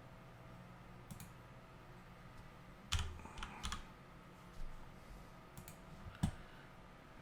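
Scattered clicks of a computer keyboard and mouse: a few separate keystrokes and clicks spread over several seconds, the loudest about three seconds in and just after six seconds.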